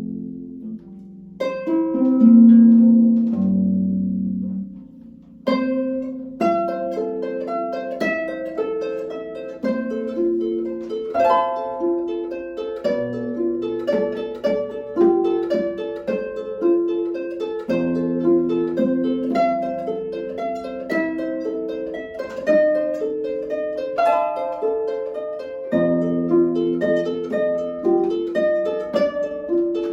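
Solo concert harp playing flowing, rippling plucked notes over low bass notes. A ringing chord dies away into a short pause about five seconds in, and then the notes run on.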